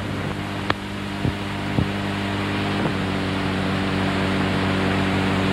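Steady hiss over a low hum that grows slowly louder, with a few faint clicks about a second in and again near the three-second mark.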